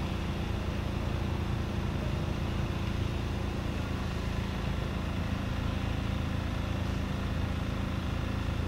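An engine running steadily with an even, unchanging hum.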